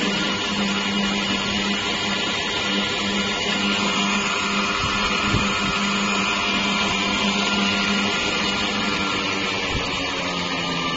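Electric motor driving a golf cart rear axle, running steadily at speed with a constant whine and gear noise.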